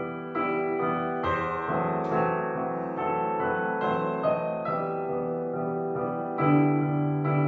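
Piano music: notes and chords struck about once a second and left to ring.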